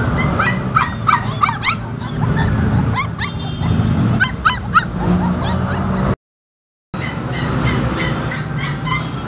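Puppies whimpering and yipping in short, high-pitched cries that come in clusters, over a steady low hum of background noise. The sound cuts out briefly a little after six seconds.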